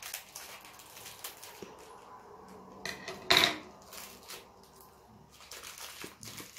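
Scissors snipping into a small crinkly packet and the wrapper being rustled, with a single sharp clatter about three seconds in as the scissors are put down on the tabletop.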